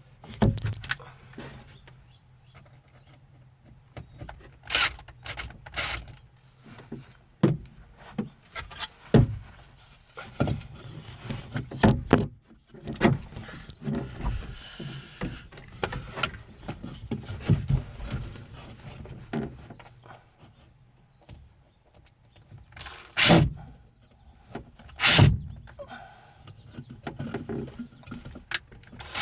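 Irregular knocks, taps and clatter of tools and materials being handled during hand work, with a faint low hum for the first several seconds.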